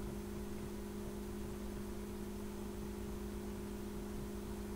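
A steady low hum made of two even tones over a faint hiss, unchanging throughout, with no other sounds.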